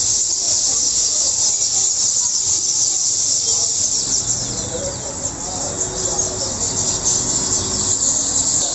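Dense chorus of many small birds chirping at once, a continuous high twittering.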